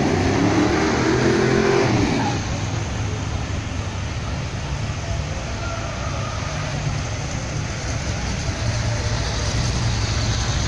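Big old American sedans' engines as they drive slowly past. The first car accelerates with a rising engine note that drops away about two seconds in, then a lower steady engine rumble follows as the next cars roll by, over crowd noise.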